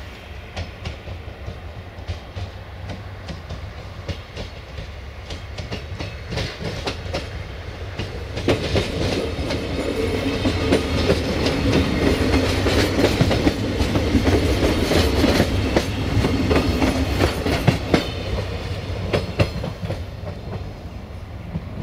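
Siemens Desiro VT642 two-car diesel multiple unit approaching, passing and moving away. Its engine hum and the clickety-clack of its wheels over rail joints rise to a peak about halfway through and then fade.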